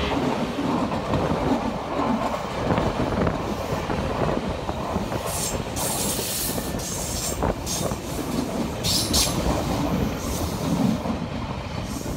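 Nankai Railway stainless-steel commuter train running along a curved elevated track, its wheels rumbling and clacking over the rails. Short bursts of high wheel screech on the curve come about five and nine seconds in.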